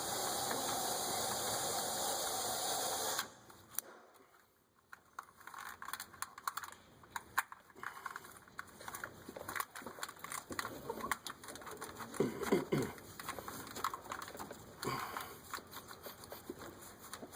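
Fuel running out of the opened fuel line in a steady rush, cutting off suddenly about three seconds in. Then a long run of light clicks and plastic rattles as the fuel filter and its blue-tab quick-connect fittings are handled and snapped on.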